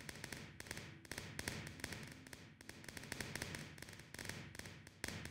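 Fireworks crackling: dense runs of rapid pops, in several bursts with short breaks between them.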